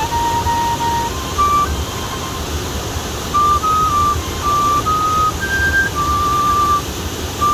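A flute playing a slow melody of single held notes, with a pause partway through, over the steady rush of a waterfall.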